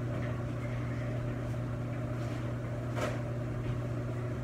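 Steady low machine hum, like a kitchen appliance or fan running, with a light click about three seconds in.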